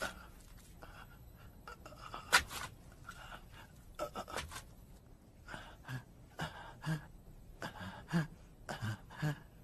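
A young man's heavy, ragged panting, about two breaths a second, in the second half. Earlier there are only a few faint, sharp taps.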